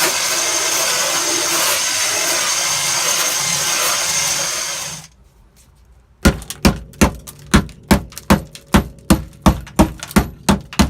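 A steady hiss with a thin high whine runs for about five seconds and cuts off abruptly. After a moment of quiet comes a rapid run of sharp knocks, about three a second: hand tools striking and chipping at the car's stock tar mat in the floor pan.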